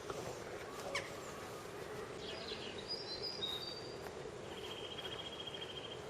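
Small birds chirping, with short high notes and then a rapid trill near the end, over a steady low background hum.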